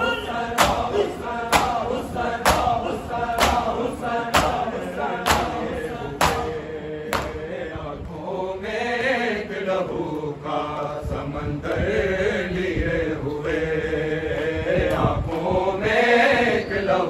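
Men chanting a noha together while mourners beat their chests (matam), sharp hand slaps about once a second. The slaps stop about seven seconds in, and the group chanting carries on alone in long rising and falling phrases.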